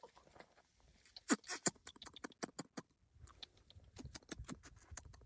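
A scatter of light, irregular clicks and taps, several a second, loudest about a second and a half in.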